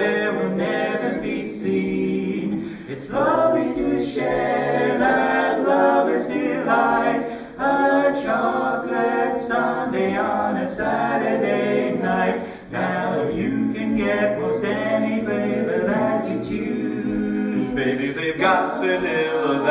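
A mixed quartet of two women and two men singing a cappella in close barbershop-style harmony, with two brief breaks between phrases.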